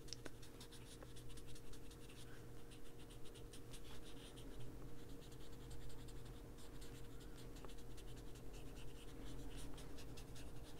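Foam-tipped ink blending tool rubbing round and round on a paper colouring page: a quick, irregular run of soft scratching strokes as the last of the ink is worked off the pad.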